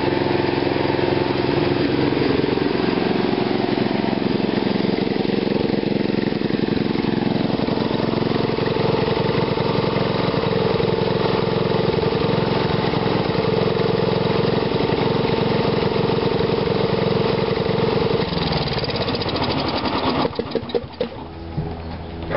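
Small engine running on a GEET fuel-processor reactor with an RC carburetor, holding a steady note, then being shut down: from about 18 seconds in its pitch falls away and it stops around 20 seconds, followed by a few clicks.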